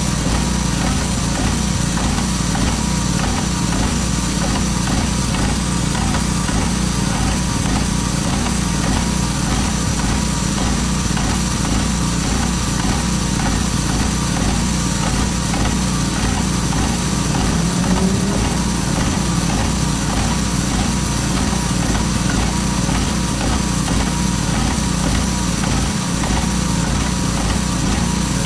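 Airless line-striping machine running steadily as it paints a road line: its small engine and paint pump with a fast, even pulse, under a steady hiss of paint spraying from the nozzle.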